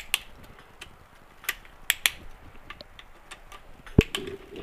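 Scattered sharp clicks and metallic clinks of hand tools being handled, with one heavier knock about four seconds in.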